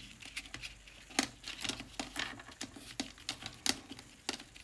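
Paper and cardstock being handled: rustling with irregular light taps and clicks as the pieces are pushed and fitted into place.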